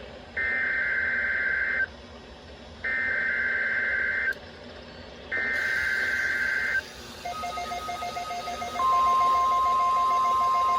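NOAA Weather Radio Required Weekly Test: three bursts of EAS/SAME digital header data, each a harsh warbling screech of about a second and a half, a second apart. From about seven seconds a faint pulsing beep comes in. From about nine seconds the loud steady 1050 Hz warning alarm tone begins.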